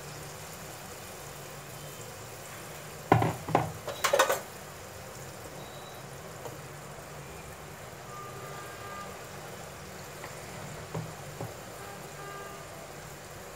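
Mysore bonda batter balls deep-frying in hot oil in a kadai, a steady low sizzle. About three seconds in, a fork knocks against the pan several times in quick succession, with a couple of lighter taps near the end.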